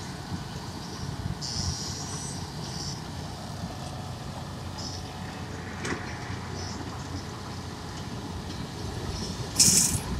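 Wirtgen W 200 cold milling machine running steadily as it mills asphalt, a low steady machine noise. Brief high squeals come about one and a half to three seconds in, and a short loud hiss comes near the end.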